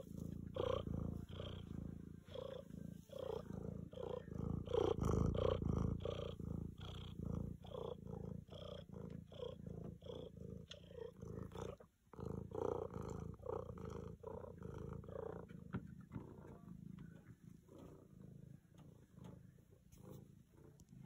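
Grey tabby cat purring loudly close up, in an even, rhythmic pulse that grows fainter over the last few seconds.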